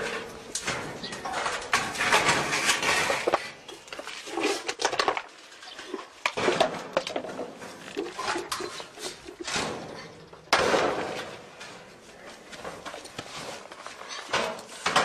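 A stiff wooden door being forced open with effort: its metal latch clanking and the boards rattling and knocking in a string of sharp hits and scrapes, with one loud bang about ten seconds in.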